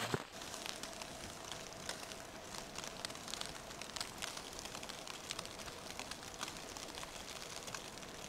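Faint outdoor ambience of a snow-covered forest: a steady soft hiss with many light, scattered ticks.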